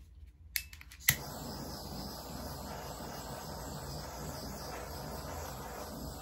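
Handheld butane torch clicking twice on its igniter, catching about a second in, then hissing steadily as its flame is passed over wet resin to pop the bubbles.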